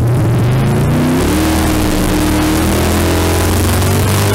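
1989 Dodge D150 drag truck's 440 big-block V8 at full throttle on a drag-strip pass, heard from inside the cab. Its pitch climbs, changes with a gear shift about a second in, then keeps rising slowly.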